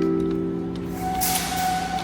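Background music of held, sustained chords. A rushing hiss joins about a second in.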